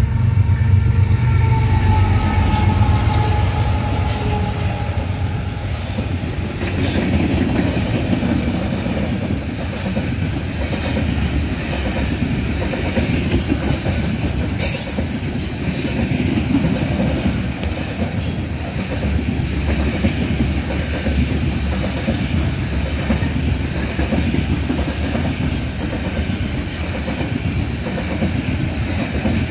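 Diesel locomotives of a coal train going by, a low engine drone with a whine that drops in pitch over the first five seconds or so. Then a long string of coal hopper cars rolls past in a steady rumble, with repeated clicks of wheels over the rail joints.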